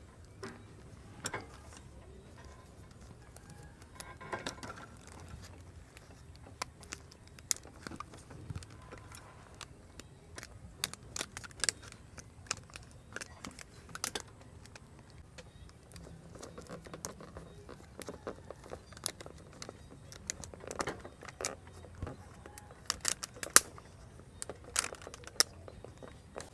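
Rubber bands being stretched and snapped tight around a banana-leaf-wrapped roll held between wooden chopsticks. Scattered faint clicks and snaps come from the bands and chopsticks, with light rustling of the leaves.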